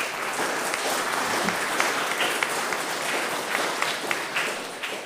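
Audience applauding: many hands clapping in a dense patter that starts suddenly and dies away near the end.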